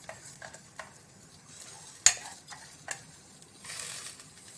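A metal spoon stirring rice and moong dal in a steel pressure cooker, scraping and tapping against the pan in a handful of sharp clicks, the loudest about two seconds in, with a brief hiss of shifting grains near the end.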